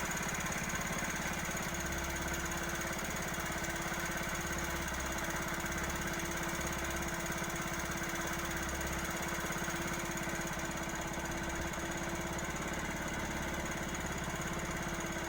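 A small engine running steadily at an even speed, with a constant hum.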